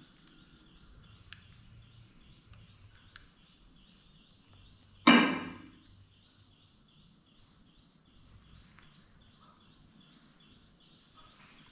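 Quiet rural room ambience with a few faint bird chirps and a steady faint high drone. A few faint clicks come early on. About five seconds in there is one loud, sudden sound that dies away within half a second.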